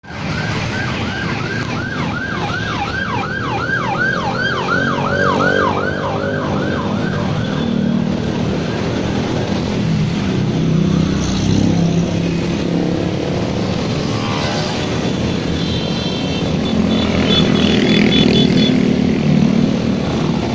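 A siren in a fast yelp, about three rising-and-falling sweeps a second, over the engines of a procession of motorcycles passing close by. The siren stops about eight seconds in, leaving the motorcycle engines, with a few short high tones near the end.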